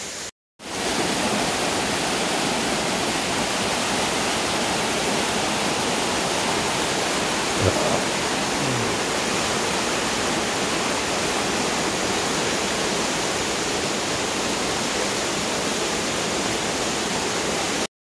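Waterfall pouring onto rock and into a pool: a steady, dense rush of water, briefly cutting out just after the start and again just before the end.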